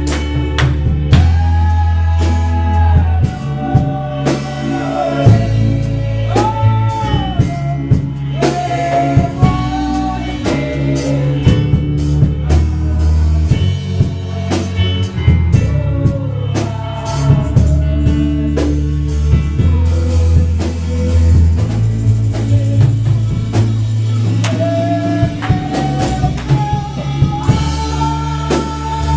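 Worship music: a sung melody over a steady drum beat and a bass line that changes note every second or two.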